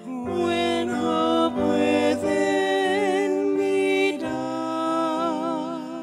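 A woman's solo singing voice through a microphone, holding notes with vibrato, over piano accompaniment; she takes a breath and starts a new note about four seconds in.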